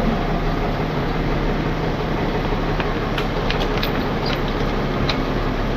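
Tow truck engine running steadily during a lift, with a few light clicks about three to five seconds in.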